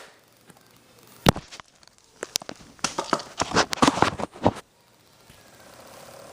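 Plastic DVD case being handled and opened: a sharp click about a second in, then a quick run of clicks and plastic crackling, followed by a faint steady low sound near the end.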